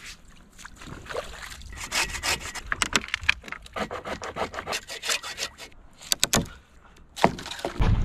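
Dry driftwood logs being handled and worked: a run of quick rasping wood-on-wood strokes, with a few sharp knocks near the end.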